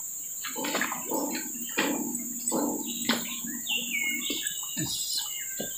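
Steady high-pitched chorus of crickets with a few bird chirps, broken by a handful of short, sharp, irregular sounds.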